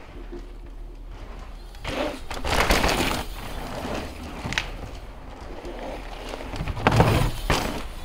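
Mountain bike tyres crunching and skidding over loose, dusty dirt. The sound swells into two loud rushes, about two seconds in and again near the end, as the bike carves through turns.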